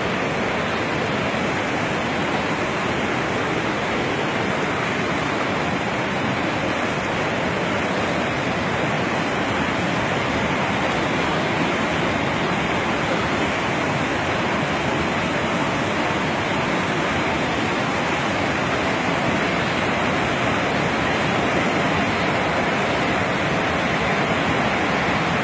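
Steady rushing of a river in flood, fast muddy floodwater pouring past in a strong current.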